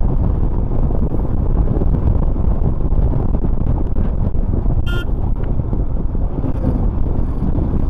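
Steady low wind rumble on the microphone mixed with the running noise of a Royal Enfield Himalayan motorcycle on the move. A short, high horn toot sounds about five seconds in.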